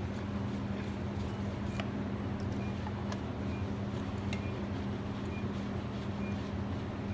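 Steady low hum, with a few faint clicks and knocks as a compression tester's hose is screwed by hand into a spark plug hole.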